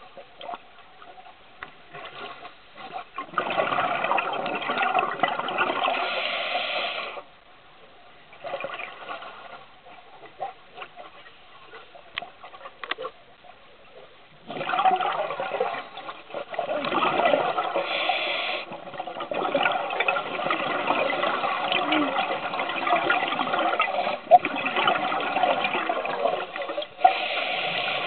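Scuba diver breathing through a regulator, heard underwater: bursts of exhaled bubbles lasting a few seconds, separated by quieter pauses, with the bubbling nearly continuous through the second half.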